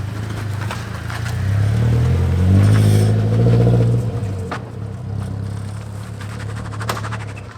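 Nissan 240SX engine running, revved up for a couple of seconds and then dropping back to idle, with a couple of sharp clicks near the end.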